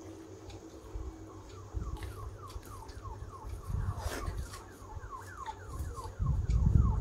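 Close-up eating by hand: fingers squishing rice and dal on a steel plate, then chewing, with scattered small clicks and heavy close low thuds that are loudest near the end. Behind it, a quick run of short falling chirps, two or three a second, keeps on throughout.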